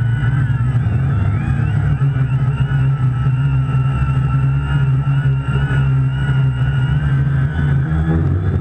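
A quadcopter's electric motors and propellers whine steadily as it hovers and drifts, the pitch wavering up and down as the motor speeds adjust, over a heavy low rumble. It is heard from the camera mounted on the craft.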